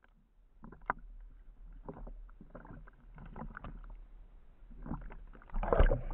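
Sea water sloshing and splashing over a speargun-mounted camera at the surface, in irregular splashes, with a louder splash near the end as the camera goes under.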